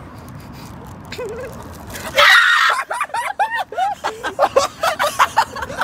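A young man suddenly lets out a loud scream about two seconds in, followed by a rapid string of short high-pitched shrieks. Before it there is faint, steady street background.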